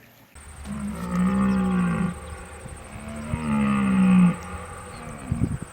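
A large animal giving two long, low calls, each about a second and a half, with a slight rise and fall in pitch. A steady high-pitched tone runs behind them.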